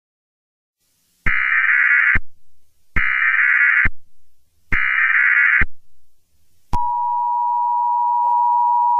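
Emergency Alert System header: three short, identical bursts of buzzing SAME data tones, each just under a second long and evenly spaced. A little over a second after the last burst comes the steady, two-tone EAS attention signal, which holds without a break. This sequence marks the start of an emergency alert broadcast.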